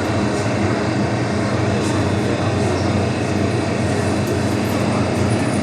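MTR M-train metro train running along the line: a steady rumble of wheels on rail with an even low hum.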